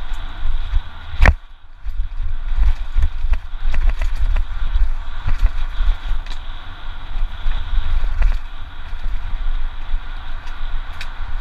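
Giant Reign 2 mountain bike descending a rough, rocky trail at speed: wind buffeting the microphone with a heavy rumble, tyres crunching over loose stones, and scattered clicks and rattles from the bike. A sharp knock comes about a second in.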